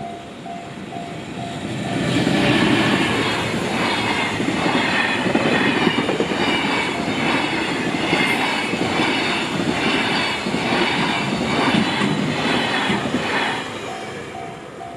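Level-crossing warning bell ringing in an even, pulsing two-tone pattern. About two seconds in, a JR Takasaki Line train passes over the crossing: wheels clatter regularly on the rails and drown out the bell for about eleven seconds. The train fades and the bell is heard again near the end.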